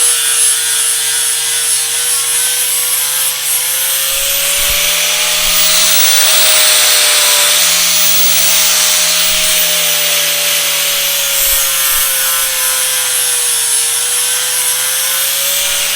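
A power tool working steel plate: a steady motor whine that drifts slightly in pitch under the load, over a constant hiss of cutting.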